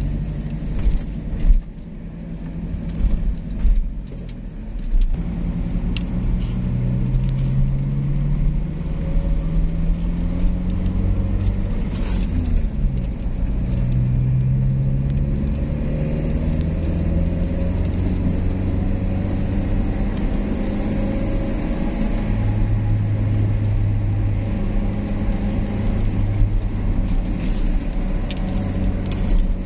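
Car engine and road noise heard from inside the cabin as the car pulls away and accelerates, the engine pitch rising and then dropping at upshifts about twelve seconds in and again near twenty-two seconds. A few knocks in the first five seconds.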